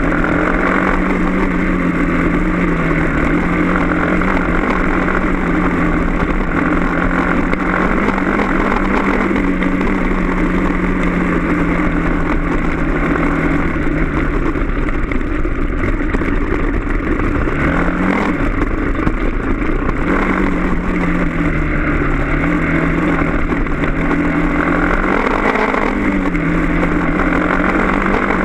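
Dirt bike engine running while riding a rough trail, its pitch rising and falling with the throttle, with a quick rev about two-thirds of the way through.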